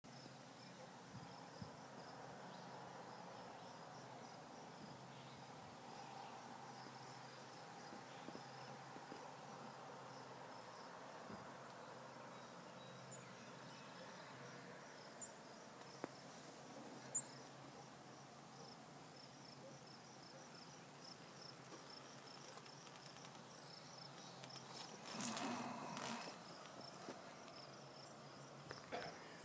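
Faint outdoor ambience: a steady, high-pitched chirp repeating a few times a second over a low hum of background noise, with a brief louder noise near the end.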